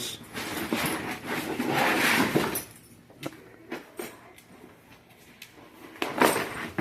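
Two dogs play-wrestling, with the scuffle of bodies and a plastic cone collar clacking and scraping. The scuffling is busiest in the first couple of seconds, eases off into a few scattered clicks, then picks up again near the end.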